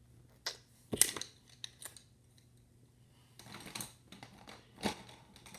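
Colored pencils being handled and picked from a set: scattered light clicks and knocks of wooden pencils against each other and the table, with a short stretch of rustling in the middle.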